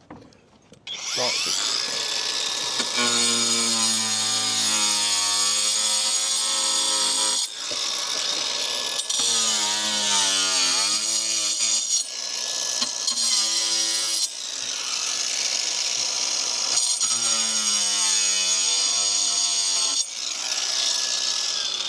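Angle grinder spinning up about a second in and cutting across a roof slate with a loud, steady high whine. Its pitch dips and wavers as the disc bites into the slate, with a few brief breaks in the cut.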